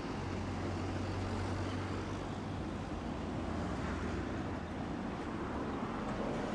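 Steady running noise inside a Tosaden streetcar: an even rumble with a low hum that eases off about halfway through.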